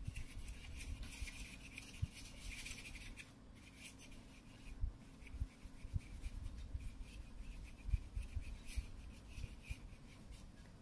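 Blue foam duster rubbing over the clear-taped cardboard practice card, wiping off marker: a soft scratchy swishing, strongest in the first three seconds and then in shorter strokes, with a few light knocks.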